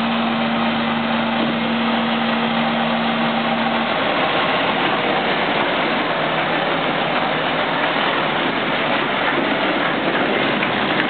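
Diesel engine of a MAN tractor unit running as the truck pulls a tipper trailer slowly past over rough dirt. A steady hum in the engine sound drops out about four seconds in.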